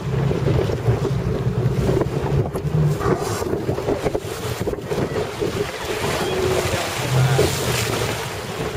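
Inflatable boat under way: a steady motor hum under wind buffeting the microphone and water rushing and splashing alongside the hull.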